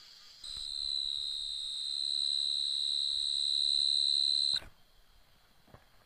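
Insect buzzing: one steady, high-pitched drone that starts about half a second in, grows slightly louder and cuts off suddenly near the end, over a fainter high insect hum.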